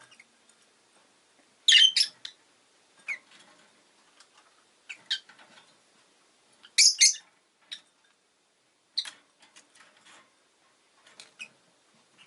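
Rosy-faced lovebird (Agapornis roseicollis) giving short, sharp, high chirps in scattered bursts, loudest in two quick clusters about two seconds in and about seven seconds in, with softer single chirps between.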